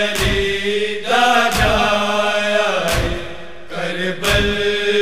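Noha lamentation chant: voices hold a long wavering note between refrain lines over a heavy beat that falls about every one and a half seconds.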